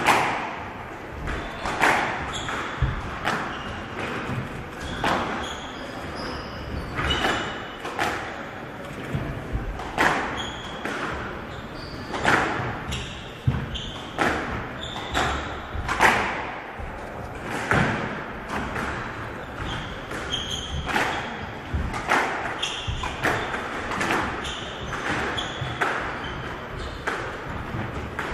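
Squash ball being struck by rackets and smacking off the court walls in a long rally, a sharp echoing impact every second or two. Short high squeaks of the players' shoes on the court floor come between the hits.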